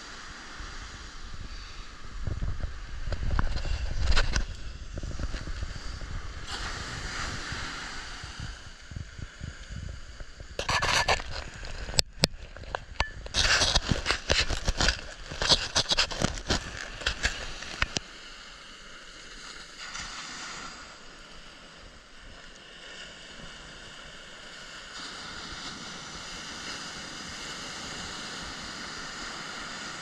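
Surf washing onto a sandy beach, with a low rumble of wind on the microphone a couple of seconds in. In the middle, a few seconds of loud, sharp scraping and crackling, then steady surf again.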